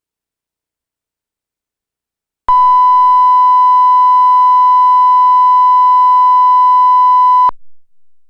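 1 kHz line-up test tone that goes with SMPTE colour bars: one loud, steady, unwavering beep about five seconds long, starting abruptly a couple of seconds in and cutting off sharply.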